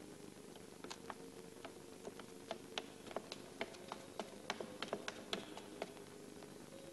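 Faint, irregular sharp clicks, a few at first and then thicker in the middle, over a steady low hum.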